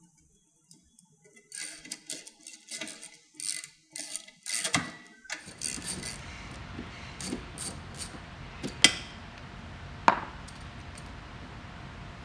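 Metal hand tool working the bolts that hold a reclining sofa's mechanism to the rail: a run of quick clicks and clinks, then two sharp single clinks later on.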